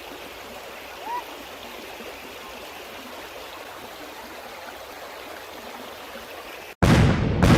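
Steady rushing of waterfall water, with one short rising chirp about a second in. Near the end it cuts off sharply, and two loud, deep booming hits follow.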